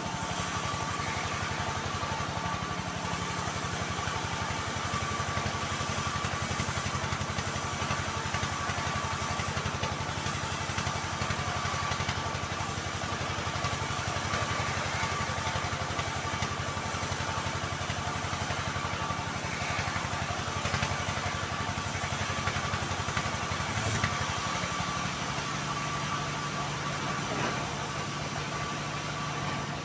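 Homemade bandsaw mill running steadily on a mahogany log, a machine hum with a steady whine; about three-quarters of the way through, the low part of the hum shifts.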